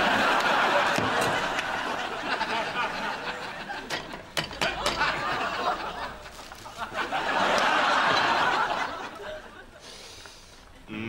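Studio audience laughing in two waves, one at the start and another about seven seconds in, with a few sharp clicks between them.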